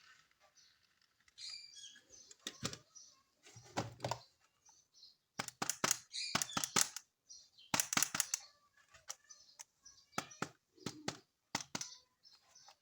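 Plastic toy parts and packaging being handled: an irregular run of sharp clicks and taps, some in quick clusters, mixed with short crinkly rustles.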